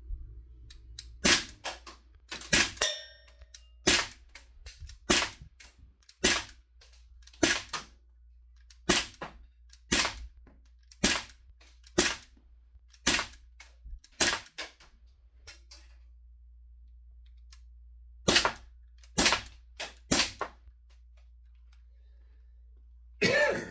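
Daisy 5501 CO2 BB pistol firing single shots, roughly one a second, about nineteen in all, with a short pause about three-quarters of the way through. This is a 12-gram CO2 cartridge still powering a third magazine.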